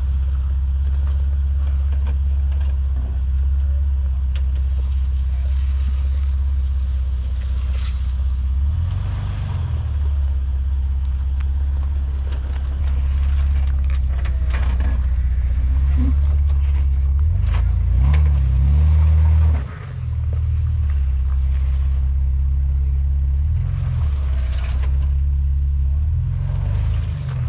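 Jeep Wrangler engine running at low speed while rock crawling, its pitch rising and falling several times as the throttle is worked, loudest about two-thirds of the way through. Short crunches and clatters of the tyres on rock and gravel are scattered throughout.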